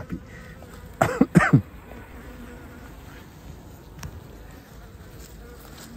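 Honeybees humming faintly in an opened hive's upper honey super, a low steady buzz. A short vocal sound from a man breaks in about a second in.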